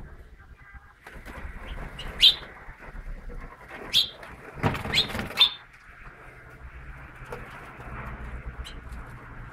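House finches in a cage giving a few short, sharp rising chirps: one loud chirp about two seconds in, then a cluster of three or four about halfway through. Wings flutter as the birds fly between perches.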